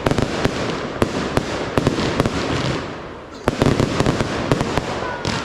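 Fireworks display: dense crackling with many sharp bangs, easing briefly about three seconds in before a fresh cluster of bangs.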